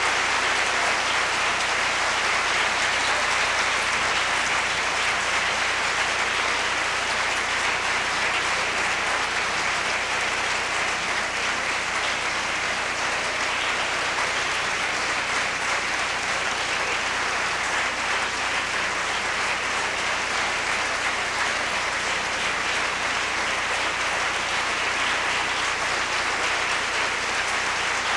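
Audience applauding steadily: dense, even clapping that keeps up without a break.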